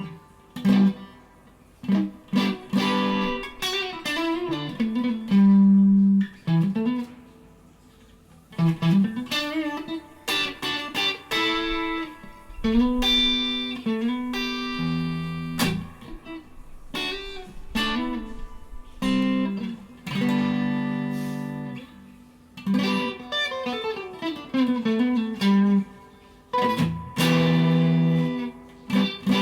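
PRS Silver Sky electric guitar, with its maple fretboard and single-coil pickups, played through a Mesa Triple Crown amplifier. Picked single notes and chords come in short phrases with brief gaps between them, and some notes glide in pitch.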